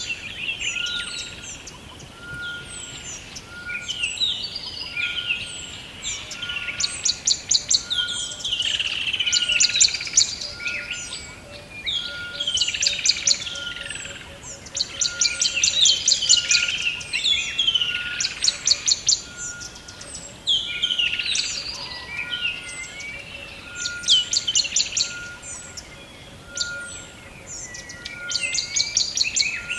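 Several songbirds singing together. A rapid trill comes back every few seconds over warbling chirps, with a short, even note repeated about once a second underneath.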